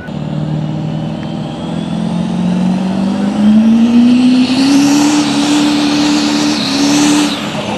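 Turbocharged diesel engine of a GMC pickup under full load pulling a sled, its pitch climbing steadily over the first few seconds, then held high at its loudest until it lets off sharply shortly before the end.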